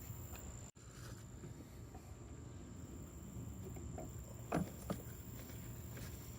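Faint steady background hum with two light knocks about a third of a second apart, a little past the middle.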